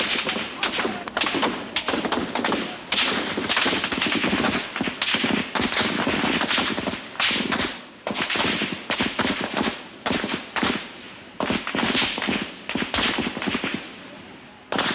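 Soldiers' military rifle gunfire: many shots in rapid, irregular strings and bursts, thinning out near the end.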